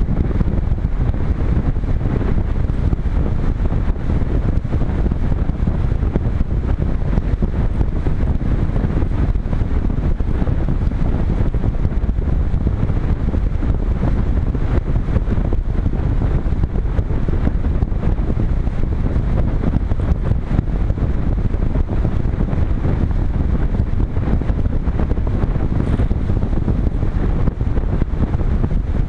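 Steady, loud wind rush over the microphone of a GoPro Hero 3 riding on a Multiplex Cularis RC glider in flight, a heavy low rumble with no steady motor tone in it.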